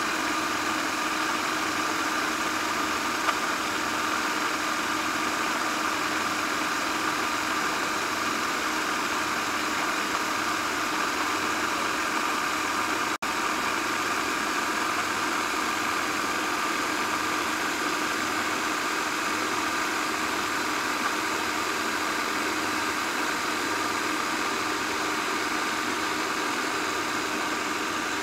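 Food processor motor running steadily with a constant whine while it whips eggs and a slow drizzle of oil into mayonnaise. The sound breaks off for an instant about halfway through.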